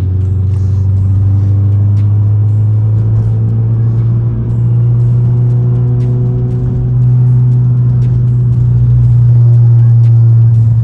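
2014 Ford Focus ST's turbocharged 2.0-litre four-cylinder engine droning steadily under load as the car is driven, growing louder about seven seconds in.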